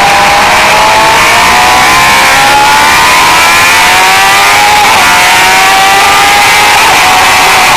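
Suzuki sport bike engine pulling hard on a race track, its pitch climbing steadily, with a brief wobble about five seconds in. Heavy wind rush on the bike-mounted camera's microphone runs underneath.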